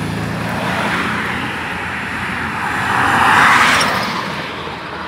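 A car passing close by on a road, its tyre and engine noise swelling to a peak about three and a half seconds in, then easing as it drives away. A lower engine hum from traffic runs underneath at the start.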